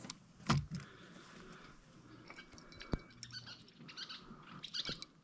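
Light, scattered clicks and taps of fishing gear being handled: a catfish rod and its tackle. There is a soft thump about half a second in and a sharp click about three seconds in.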